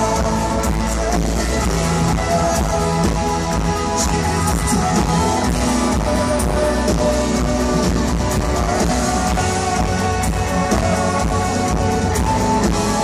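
A live band playing loud amplified music, led by electric guitar over drums and cymbals, with no break.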